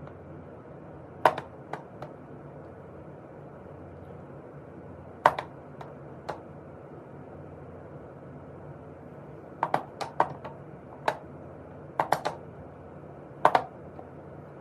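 Scattered sharp taps and clicks at irregular times, some in quick clusters of two to four, over a steady low hum.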